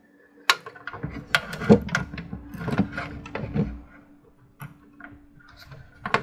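Hands working a SATA data cable onto its motherboard connector inside a small computer case: a run of sharp plastic clicks, taps and scrapes, busiest in the first few seconds and sparser near the end. A faint steady hum lies underneath.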